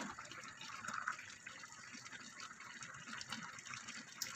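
Penne in tomato sauce simmering in a pot on a gas stove: a soft, steady bubbling hiss with small pops. A short knock comes near the end.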